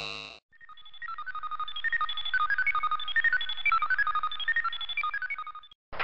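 Science-fiction electronic bleeping effect: a rapid run of short beeps hopping between a few high pitches for about five seconds, starting just under a second in. A deep electronic hum fades out at the very start.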